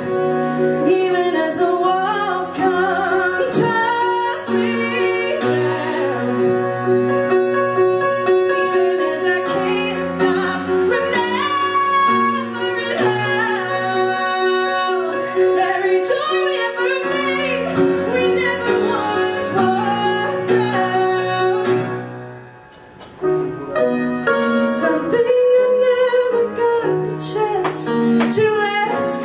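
A woman singing a musical-theatre ballad solo with live grand piano accompaniment. The music falls to a brief hush about three-quarters of the way through, then picks up again.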